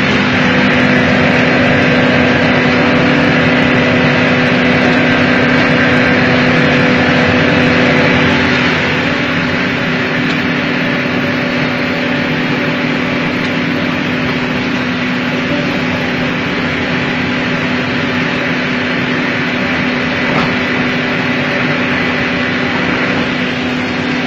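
Hydraulic excavator's diesel engine running steadily at working revs with a constant hum, dropping slightly in level about eight seconds in.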